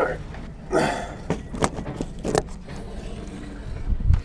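Handling noise: rustling and a run of sharp clicks and knocks, with a low thump near the end.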